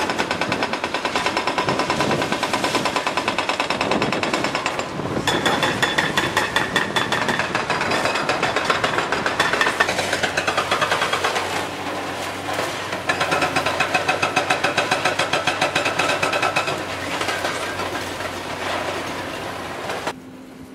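Hydraulic breaker on a Caterpillar excavator hammering reinforced concrete in rapid, steady blows, easing off briefly a few times. The excavator's diesel engine hums underneath, and the hammering breaks off just before the end.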